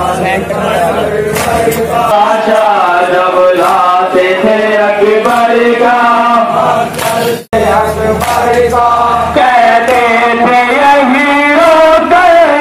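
Men's voices chanting a nauha, a Shia Muharram mourning lament, to a steady sung melody. The sound cuts out for a moment about seven and a half seconds in, then the chanting resumes.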